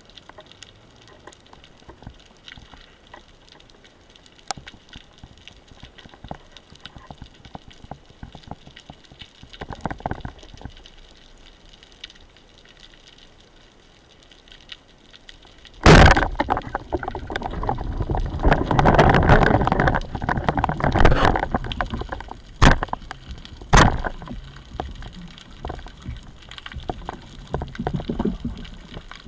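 Underwater, a band-powered Pathos Laser speargun fires at a white seabream with one sudden sharp crack about halfway in. Several seconds of loud rushing and clattering noise follow, with two more sharp knocks, as the speared fish is fought. Before the shot there is only faint crackling underwater background.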